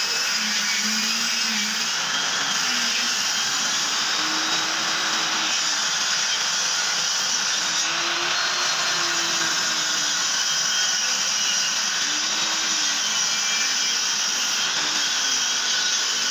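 Bench-mounted circular saw (table saw) running steadily while cutting a long strip off a large sheet board, its hum wavering slightly in pitch as the board is pushed through the blade.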